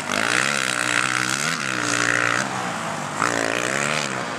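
Racing quad (ATV) engine revving hard, its pitch climbing and dropping about three times as the rider accelerates, shifts and backs off.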